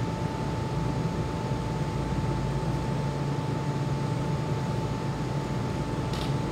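Steady mechanical drone: a constant high tone over a low hum and an even hiss, with a short higher hiss near the end.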